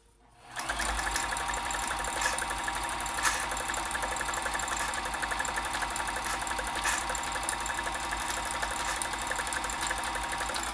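Janome Combi DX 502 sewing machine running steadily as it sews a stretch stitch through fabric. It starts about half a second in and stops at the very end, with a few sharp clicks along the way.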